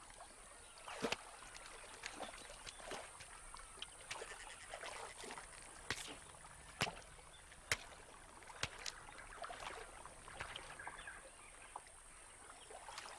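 Yacare caimans feeding in a shallow pool: faint splashing and sloshing of water, with scattered sharp snaps and clicks.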